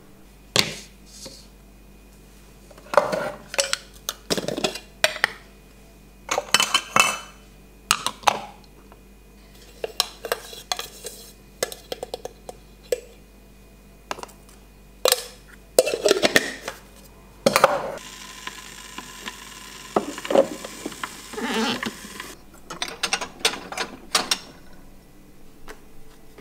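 Kitchen clatter of espresso-making: a DeLonghi espresso machine's metal portafilter, a coffee tin and cups knocked and clinked as they are handled and set down. A few seconds of steady hissing rustle come about two-thirds of the way in.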